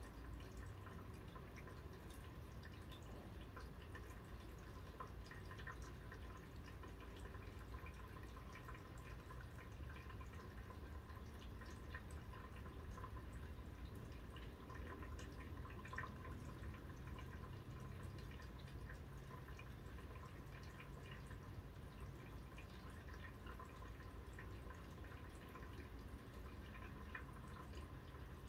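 Light rain shower heard faintly from indoors through a window: many small scattered drips and taps over a soft steady hiss.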